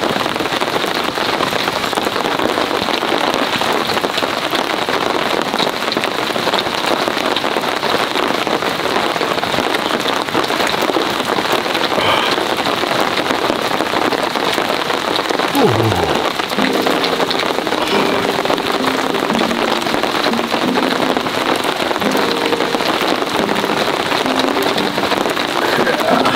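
Heavy rain falling steadily, an even hiss of drops.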